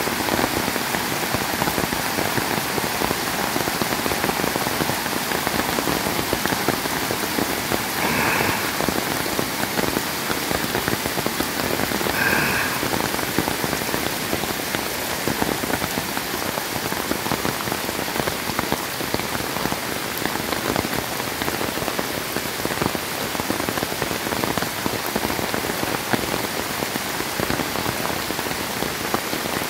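Steady rain falling on the trees and ground, mixed with the rushing of floodwater pouring across a flooded woodland trail. Two brief high chirps stand out about a third of the way in.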